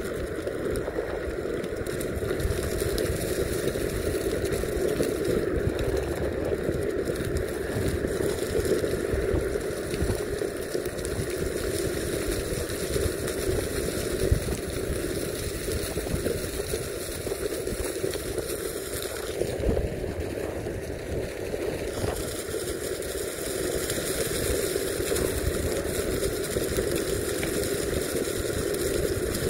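Meepo Mini 2 electric skateboard on Cloud Wheels rolling over a leaf-covered dirt trail: a steady rolling rumble of the wheels on rough ground.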